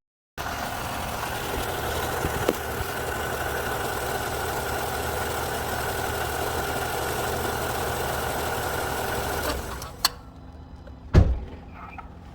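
The Ford Bronco Sport's 1.5-litre three-cylinder engine idling steadily, then shut off about nine and a half seconds in. A click and then a loud thump follow near the end.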